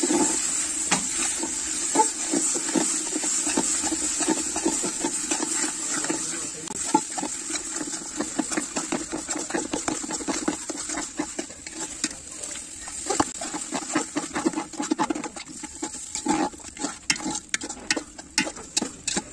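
A metal ladle scraping and clinking against a metal cooking pot as frying onions and spice paste are stirred in oil, with a steady sizzle underneath. The sizzle fades after the middle, while the scraping strokes grow quicker and sharper near the end.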